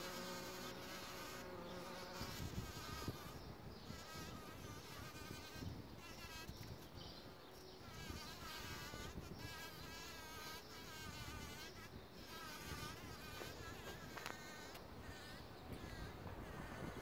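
Bumblebee buzzing at a poppy flower: a steady hum for about the first two seconds, then a fainter buzz that wavers up and down in pitch, over a low rumble.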